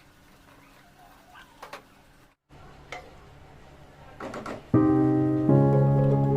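A few faint clicks and taps over a quiet background, then background piano music that comes in loud near the end and plays on.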